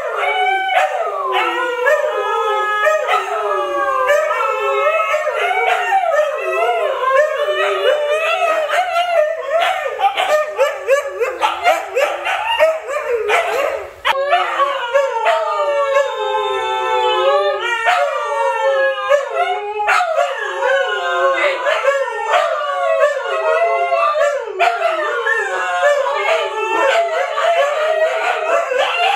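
Several Siberian huskies howling together, many overlapping howls wavering up and down in pitch, with a brief break about halfway.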